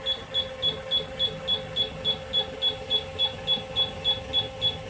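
The control panel of a Silent Partner Smart tennis ball machine beeping over and over while a button is held down: short, high beeps of one pitch, about three to four a second. Under them runs a steady hum from the machine.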